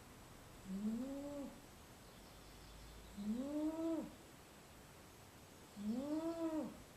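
Sleeping domestic cat snoring: three pitched snores about two and a half seconds apart, each lasting about a second and rising then falling in pitch.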